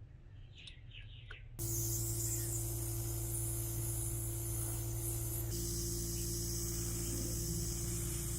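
Steady hiss of compressed air spraying, as from a spray gun or blaster, starting abruptly about a second and a half in over a steady low machine hum. The hiss changes slightly about five and a half seconds in.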